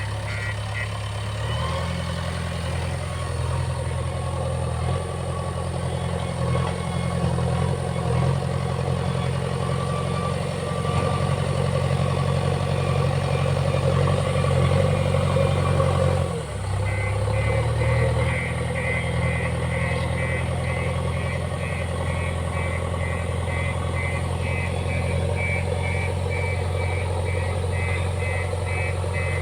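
Backhoe loader's diesel engine running steadily with a deep even hum. It breaks off briefly about two-thirds through, then carries on. From there a rapid high-pitched pulsing repeats alongside it.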